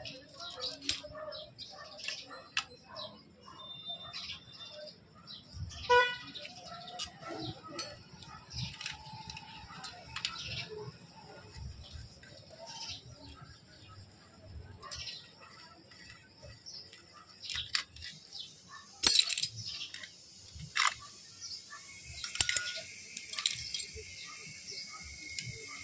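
Hand tools and small metal engine parts clinking and clanking during work on a motorcycle engine, in scattered light taps with several louder clanks in the last third.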